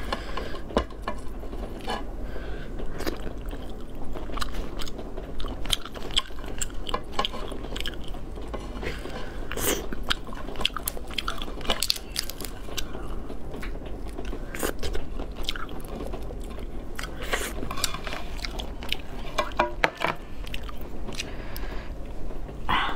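Steamed lobster shell cracking and crunching as it is broken apart by hand, with close-miked chewing and biting; irregular sharp crackles and snaps keep coming, over a steady low hum.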